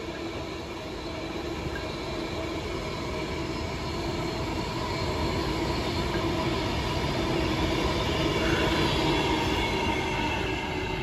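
Class 390 Pendolino electric train running along the line, a steady sound of wheels on rail with a faint whine, growing gradually louder as it approaches.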